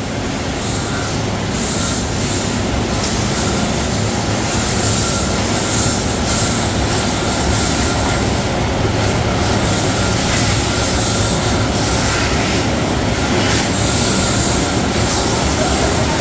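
Steady din of a seafood-processing line running: conveyor belts and machine motors give a continuous hum and hiss with no breaks.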